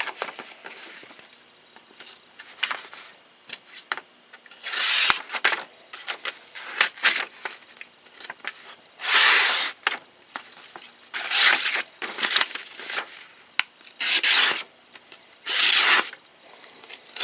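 Camillus CamLite folding knife's nicked 440 stainless blade slicing through a material in repeated strokes, each a short rasping, tearing scrape, several strokes a second or two apart. The blade cuts poorly.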